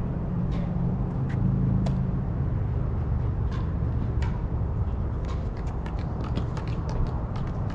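Sharp pops of pickleball paddles striking a plastic ball, a few spaced hits and then a dense run of pops near the end, over a steady low rumble.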